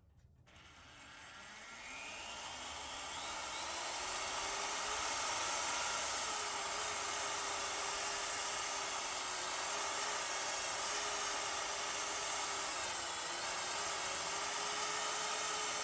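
Electric power tool (drill or similar) running continuously with a steady whine, its pitch rising as it spins up over the first few seconds.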